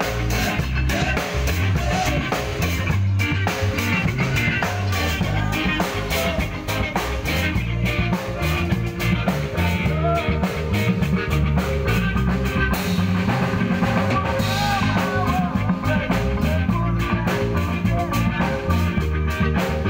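A live band playing amplified music: a drum kit keeping a steady beat under electric bass and electric guitar.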